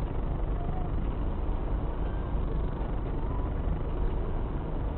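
Steady low rumble of a car crawling at walking pace, heard from inside the cabin: engine and road noise picked up by a dashcam.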